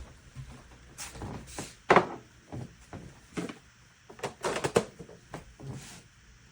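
A run of irregular knocks and clicks, like parts being handled, slid and set down, with the loudest knock about two seconds in and a quick cluster of clicks a little before five seconds.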